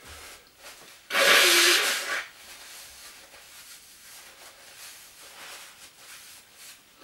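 A loud rustling scrape lasting about a second, starting about a second in, then faint rustling: clothes being handled and packed away.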